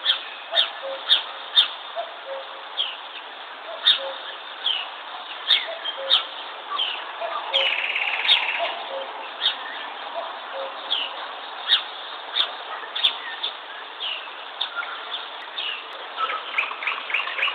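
A cuckoo repeats its two-note descending "cu-coo" call, faint and low, under a chorus of small songbirds. The songbirds' short, sharp chirps are the loudest sound. About seven and a half seconds in, a brief buzzy trill joins them.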